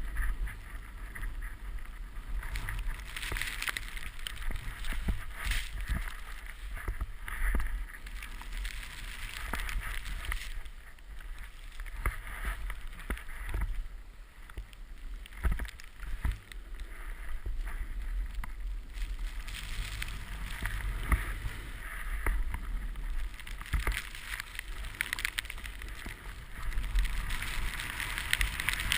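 Wind buffeting the microphone of a body-mounted camera as a snowboard slides through deep powder snow. The noise surges and eases unevenly, with occasional short knocks.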